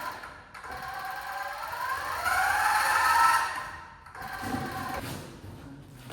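A small electric motor whines in two spells, with a brief break about half a second in. It speeds up, rising in pitch and getting louder, then cuts off about four seconds in.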